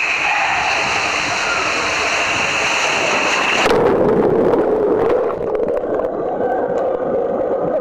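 Water rushing through an enclosed water slide tube as a rider slides down it, heard through a waterproof camera housing. About three and a half seconds in, the plunge into the pool cuts off the high end suddenly and the sound turns muffled and gurgling underwater.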